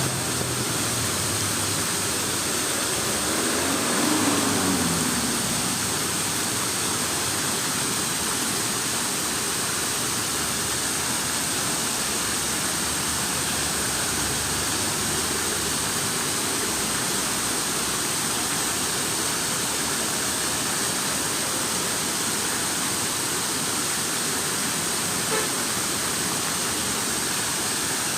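Steady rush of running water, an even unbroken noise, with a brief louder swell about four seconds in.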